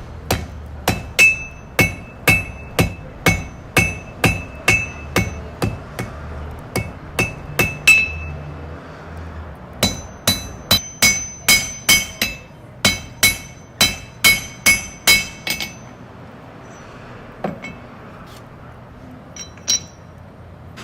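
Blacksmith's hammer striking metal on an anvil: a steady run of quick blows, about two to three a second, each one ringing. It pauses for about two seconds, comes back with a second run of blows, then gives a few single strikes near the end.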